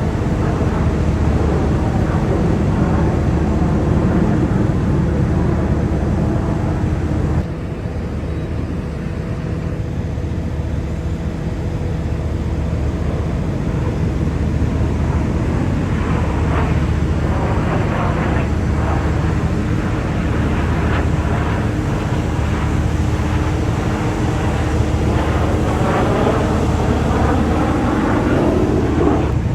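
Loud, steady aircraft noise with voices mixed in. It drops abruptly about seven seconds in, and in the second half several sounds glide down and up in pitch, as aircraft passing overhead do.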